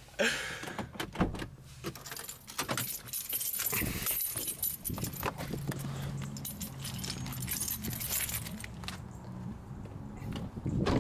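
Jangling, clattering rattles like keys or objects being handled, over a low steady hum that sets in about five seconds in.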